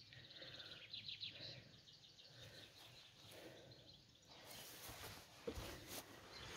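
Near silence: faint background noise with faint bird chirps.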